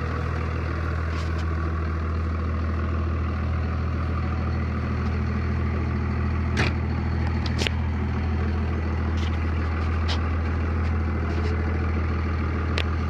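A 1999 Dodge one-ton dually's 24-valve Cummins diesel idling steadily, with a few sharp clicks and knocks from the cab as the driver climbs in.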